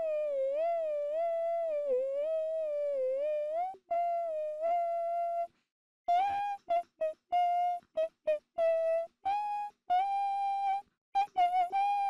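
A single high voice humming a wordless melody. For the first few seconds the notes waver and glide. Then come a couple of held notes, a short break about five and a half seconds in, and after it a run of short, separate notes.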